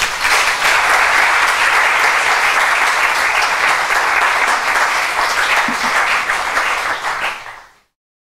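An audience applauding, a steady clatter of many hands that fades out quickly near the end.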